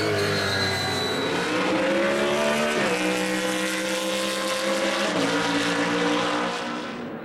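BMW Z4 GT3 race car's V8 engine running hard. Its note dips at first, then climbs as the car accelerates, with two sudden drops in pitch about three and five seconds in. The sound fades near the end.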